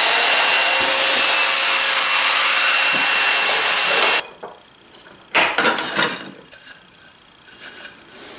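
Festool Domino joiner running with a steady whine while cutting a mortise in the end grain of a board, stopping suddenly about four seconds in. About a second later comes a short, loud burst of handling noise as the board is moved.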